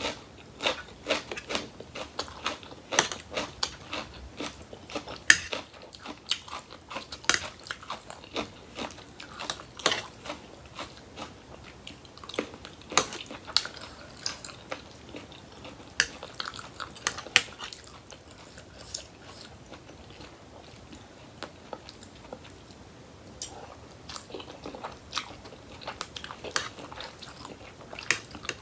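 Close-up chewing and crunching of crisp raw vegetables and spicy papaya salad with rice noodles, shrimp and squid: rapid sharp crunches, easing for a few seconds past the middle before picking up again.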